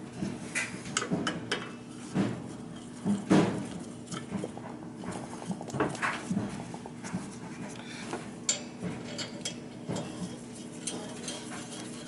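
Irregular metallic clicks, taps and knocks of hands and fittings being worked at a boiler's gas valve while a manometer hose is fitted to its pressure port, over a steady low hum.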